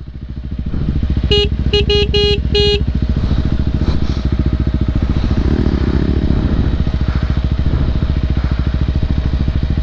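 Motorcycle engine running steadily with rapid, even firing pulses. About a second in, a run of short horn beeps sounds over it.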